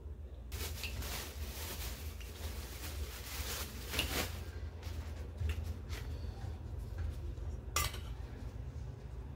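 A metal spoon clinking against a metal pot, with soft rustling as a roti is torn and eaten, and one sharp clink near the end, over a low steady hum.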